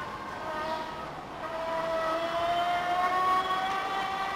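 Dillenger Cheetah Explorer folding electric bike's assist motor whining under pedal assist, the whine rising slowly in pitch and growing louder about a second and a half in as the bike picks up speed.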